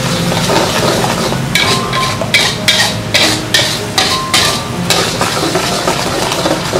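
Metal spatula stirring and scraping spice paste frying in oil in a metal wok, over a steady sizzle. Through the middle the spatula scrapes the pan in quick strokes, about three a second.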